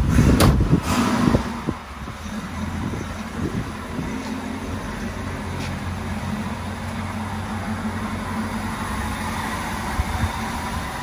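1965 Ford Mustang's 289 V8 idling steadily. A cluster of knocks and rustling handling noise comes in the first second and a half.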